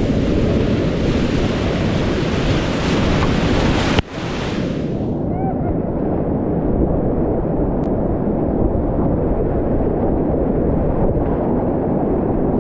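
Whitewater rapids rushing and churning loudly around a kayak, heard from a camera mounted on the boat. About four seconds in there is a sharp snap and a brief dip, after which the rush sounds duller and deeper as the bow and camera plunge into the water.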